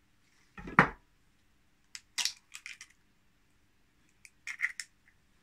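A hen's egg being cracked: a sharp knock about a second in, then two short runs of light clicks and crackles as the shell is broken open.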